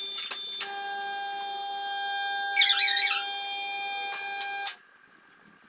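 Four-post vehicle lift being lowered: a steady, high, whining tone with a few clicks, a brief squeal midway, and a sudden cut-off about three-quarters of the way through.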